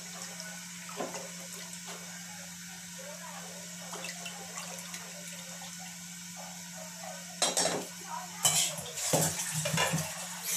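Wooden spatula stirring thin dal batter in an aluminium pot, with faint scraping and swishing. It ends in a few seconds of louder clattering of spatula and pot.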